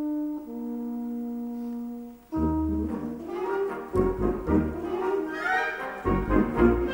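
Solo French horn holds long notes, stepping down to a lower held note. After about two seconds the full wind band comes in with brass chords and heavy low accents.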